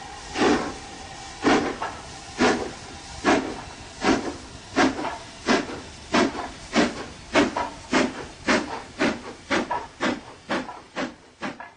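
Steam locomotive exhaust chuffing as it gets a train under way. The beats come about one a second at first and quicken steadily to nearly three a second, over a hiss of steam.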